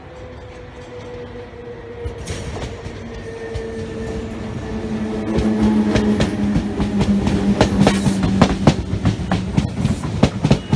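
SNCF Z 6400 suburban electric multiple unit approaching and passing close by, growing louder throughout. A steady, slightly falling whine comes first, then from about halfway in the wheels clack over the rail joints, faster and louder as the cars go past.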